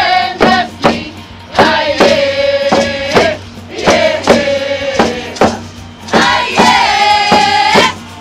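Group of singers with hand drums performing a First Nations drum song: the drums are struck about twice a second under long, held sung notes.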